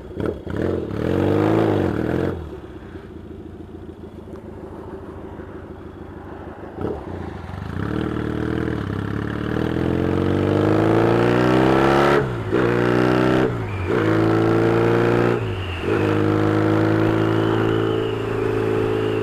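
Yamaha XS650 parallel-twin motorcycle engine with cocktail-shaker exhaust pipes. It gives a short rev, runs low for a few seconds, then pulls away, rising in pitch through the gears with three brief dips at the gear changes, and settles to a steady cruise near the end.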